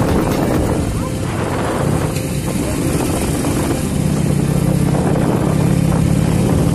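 Motorcycle engine running while riding, with wind rushing over the microphone; the engine's low steady hum becomes stronger about four seconds in.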